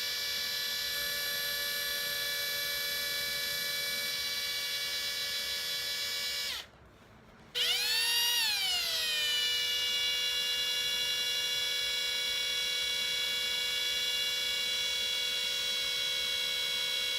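Panasonic EY7441 14.4 V cordless drill spinning a makeup brush, a steady high motor whine. It stops about six and a half seconds in, then starts again about a second later, briefly speeding up before settling back to the same steady whine.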